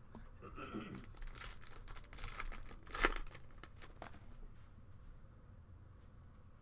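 Clear plastic card-pack wrapper crinkling and tearing in the hands as it is opened, with a sharp rip about three seconds in, then lighter rustling.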